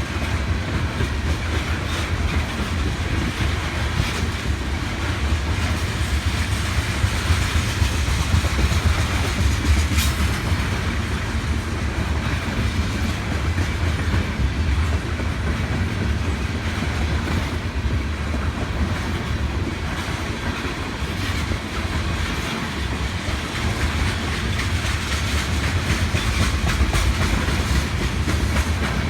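Tank cars of an oil train rolling past at speed: a steady rumble of steel wheels on rail with repeated clickety-clack over the rail joints and one sharp click about ten seconds in.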